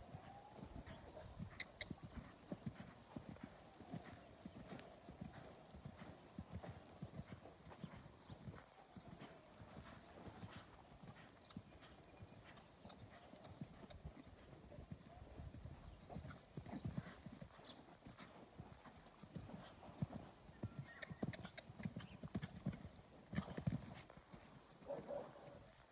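Hooves of a KWPN gelding thudding on sand arena footing at the canter: faint, dull, repeated hoofbeats, getting louder for a few seconds near the end.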